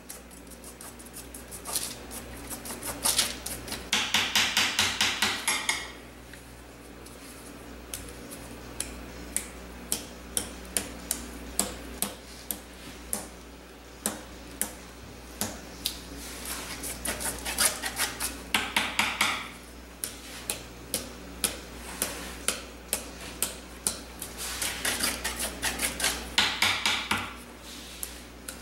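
Spray paint art handling noise: scattered clicks and taps. Three bursts of fast metallic rattling, each about two seconds, come near the start, in the middle and near the end, from an aerosol spray-paint can being shaken with its mixing ball.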